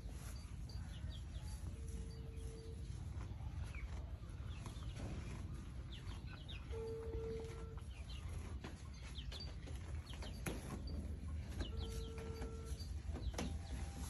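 Farmyard ambience: birds chirping and calling over a low rumble. A steady tone is held for about a second three times, about five seconds apart.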